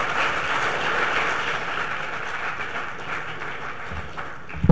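Audience applauding, thinning out near the end, with a dull thump at the very end.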